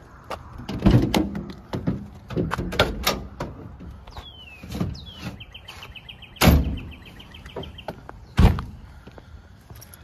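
Gear being handled at a work vehicle: a run of knocks and clatter, then two loud thuds about two seconds apart near the end as the vehicle's doors are shut.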